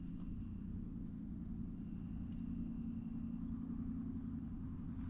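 Short, very high-pitched chirps repeating about twice a second, some sweeping upward, over a steady low hum.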